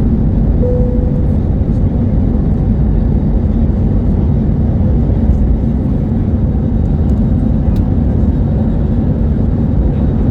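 Steady low rumble of engine and airflow noise heard inside the cabin of an Airbus A320neo-family jet airliner, with a brief faint tone under a second in.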